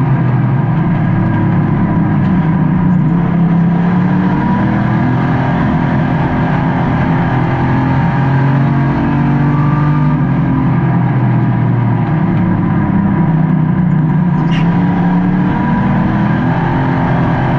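Race car engine heard from inside the car, running hard without a break, its pitch rising and falling again and again as the throttle comes on and off.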